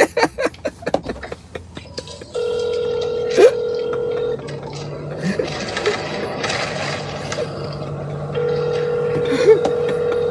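Ringback tone of an outgoing phone call heard over a phone's speaker: two steady rings, each about two seconds long, about four seconds apart.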